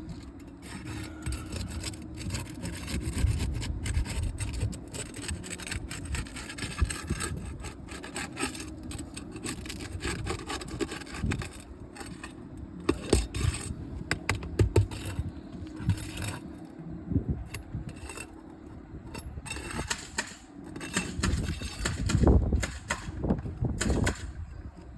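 Scraping, rubbing and prying on 20-year-old three-tab asphalt shingles as one is worked loose from the roof, with many irregular knocks and clicks.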